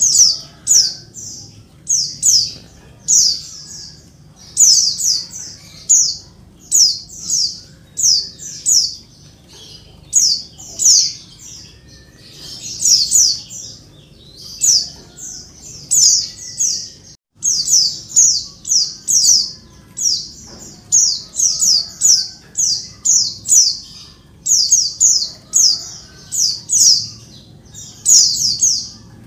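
Female white-eye (pleci) calling noisily, in quick runs of two to five high, downward-sweeping chips that repeat about once a second. The sound cuts out for a moment about seventeen seconds in.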